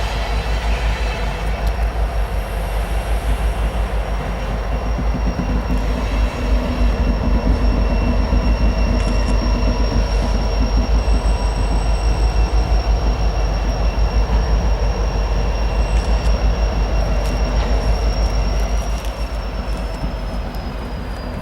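Freight train of oil tank cars rolling past, its wheels beating an even rhythm over the rail joints. A high, steady wheel squeal runs through most of it and drops slightly in pitch near the end.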